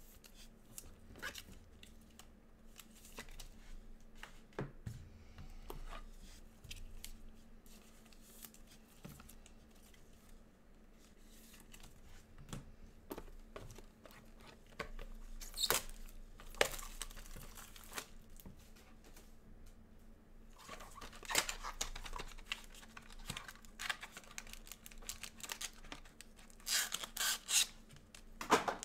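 Foil trading-card pack wrappers being torn open and crinkled by gloved hands, with light clicks of cards being handled in between. The rustling comes in bursts that grow louder about halfway through and again near the end.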